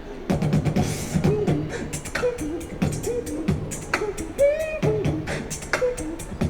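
Human beatboxing: a fast beat of sharp mouth-made drum hits, kicks, snares and hi-hats, layered with a pitched vocal bass line and short gliding melodic notes.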